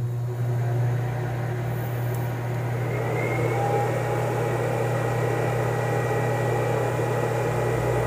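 Microwave oven running through a heating cycle: a steady low hum with a whirring, fan-like noise over it, drawing about 100 A from a 12 V lithium battery pack through an off-grid inverter.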